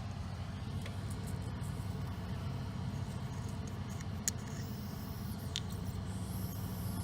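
A steady low machine hum with a few light sharp clicks.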